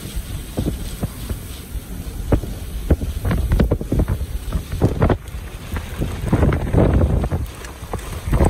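Hurricane-force wind gusting against the car and the microphone, with heavy rain driving down, heard from inside the car. The gusts come as uneven rumbling buffets and grow heavier about two-thirds of the way through.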